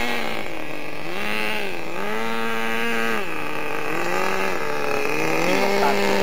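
Nitro RC truck's small glow-fuel engine revving as the truck drives, its pitch rising and falling about three times, then holding steady at a higher pitch near the end.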